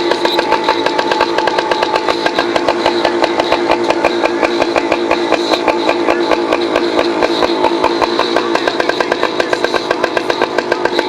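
Yamaha PW80's small single-cylinder two-stroke engine running steadily, with an even, rapid firing beat.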